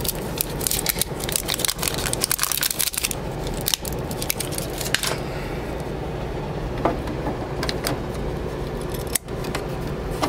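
Plastic crackling and clicking from an HP 564 ink cartridge being unwrapped and handled: a dense run of crackles for about the first three seconds, then a handful of separate clicks.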